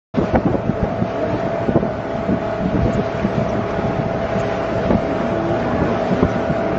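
Outboard-powered speedboat running at speed: engine noise with a steady whine over the rush of wake and spray, and wind buffeting the microphone.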